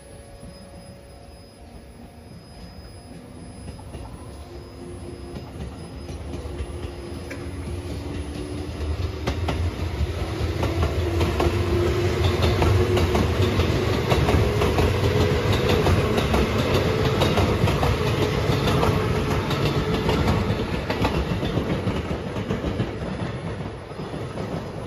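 An electric multiple-unit commuter train passes close by. The sound builds from a distance, peaks, then fades as the train moves away. The traction motors give a whine that rises slowly in pitch, over a heavy rumble and wheels clattering on the rails.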